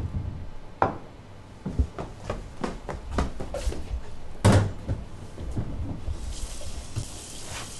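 Kitchen clatter: a string of sharp knocks and bangs, like cupboards and crockery being handled on a counter, the loudest about four and a half seconds in. Near the end a kitchen tap starts running into a stainless steel sink.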